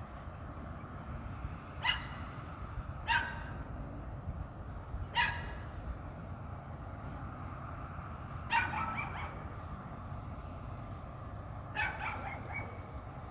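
A dog barking, single barks coming every one to three seconds, with a pair close together about two-thirds of the way through, over a steady low background noise.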